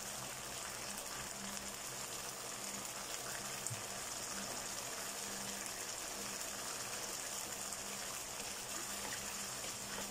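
Tomato sauce with sautéed onions sizzling and simmering steadily in a pan on a gas burner, with a faint low hum underneath.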